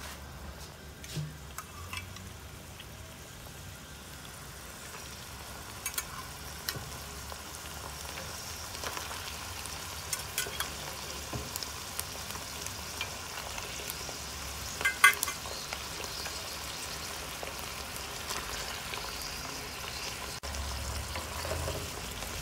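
Ground pork and green onion frying in a nonstick pan with a steady sizzle, growing slightly louder, as cubes of soft tofu sit in the pan. A few light knocks come through the sizzle, the sharpest about fifteen seconds in.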